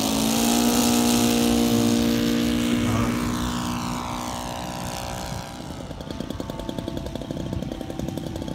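Radio-controlled scale warbird model's engine and propeller at full power on the takeoff run and climb-out, a steady note that grows fainter as the model climbs away. About five and a half seconds in it gives way to another model aircraft engine idling on the ground with a fast, even beat.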